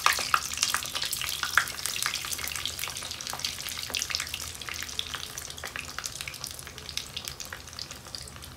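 Breadcrumb-coated chicken cutlets frying in a small pan of hot oil, a dense sizzling crackle of spitting oil. It is loudest as a cutlet goes in at the start and eases slightly over the following seconds.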